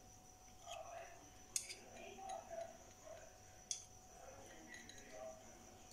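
Metal spoon scraping thick whipped coffee foam out of a glass bowl and onto a glass of milk, soft and quiet, with two sharp clinks of spoon on glass, about one and a half seconds in and again near four seconds.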